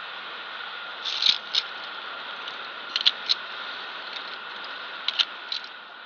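Via ferrata carabiners clinking against the steel safety cable in three short bursts of sharp metallic clicks, over a steady hiss.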